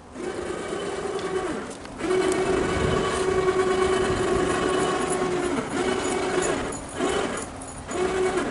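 Small 12-volt electric winch (2,000 lb) running under load, winding in its cable to haul building material up a ramp: a steady motor whine that stops briefly about two seconds in and several more times in the second half, restarting each time.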